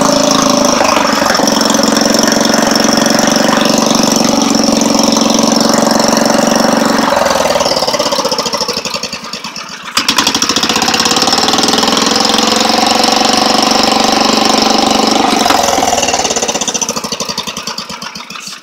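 Wisconsin air-cooled engine on a homemade log splitter, running after a year unused. It dies away about eight seconds in, comes back suddenly with a sharp click at about ten seconds, then runs down again near the end.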